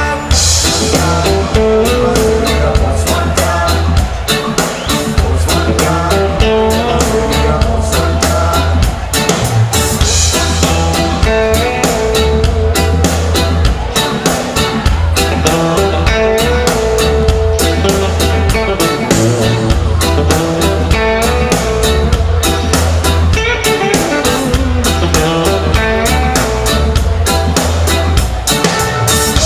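A live reggae band playing a song: a heavy bass guitar line and drum kit under electric guitar and keyboard, with a man singing at the microphone.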